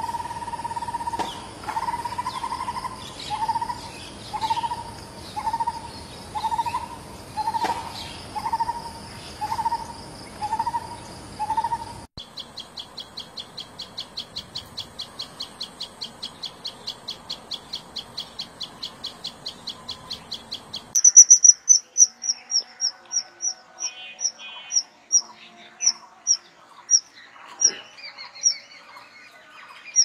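Three birds one after another, joined by hard cuts. First a lineated barbet repeats a low, throaty note about once every 0.7 s over a steady high insect drone. About 12 s in comes a common tailorbird's fast, even run of high chips, about four a second. About 21 s in come a kingfisher's loud, shrill, high single whistles at uneven spacing.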